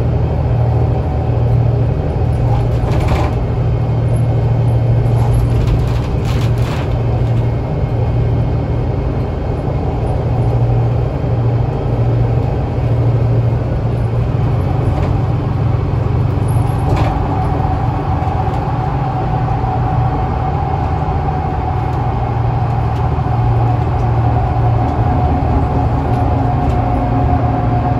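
Inside a Scania L94UA articulated bus under way: a steady low drone from the running bus, with a few faint rattles from the body a few seconds in. About two-thirds of the way through, a steady thin whine comes in and holds.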